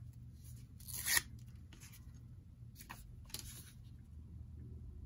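A strip of paper being torn off along a ruler edge: a few short rips, the loudest about a second in and two more around three seconds in.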